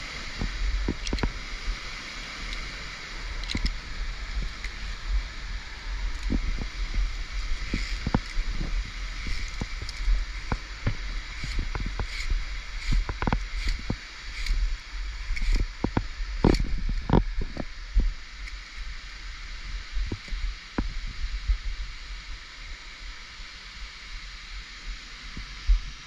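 Steady rush of a nearby waterfall, overlaid with irregular sharp clicks and knocks from via ferrata gear on the steel cable and footsteps, busiest in the middle stretch, plus low thumps of the body-worn camera moving.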